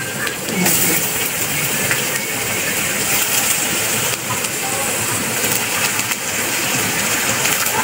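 Sliced bitter gourd frying in hot oil in a metal wok: a steady, loud sizzle.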